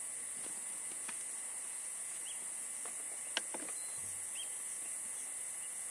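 A steady high-pitched hiss throughout, with a few faint short chirps and one sharp click a little over halfway through.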